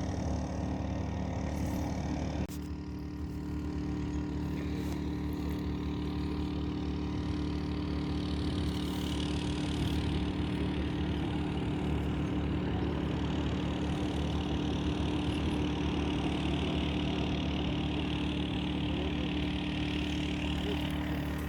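A motor running steadily with an unchanging hum, under a constant rushing noise.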